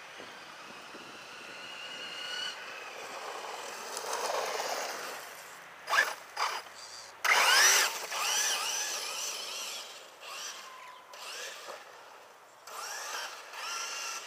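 Brushless electric motor of an Ansmann Racing Kryptonite RC truggy running on a 3S LiPo, whining as the throttle is worked, its pitch repeatedly rising. Short loud bursts come about six seconds in, the loudest run follows just after, and the sound then fades.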